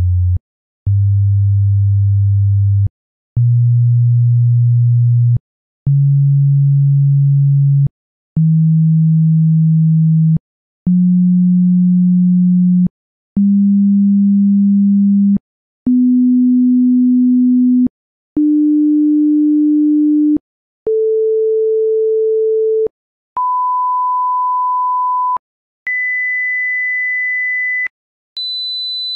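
A sequence of pure sine-wave test tones, about a dozen, each held steady for about two seconds with a brief silent gap between. They step up in pitch from a low 90 Hz hum through 200 Hz to high whistling tones of 1,000 and 2,000 Hz, and a still higher 4,000 Hz tone starts at the very end.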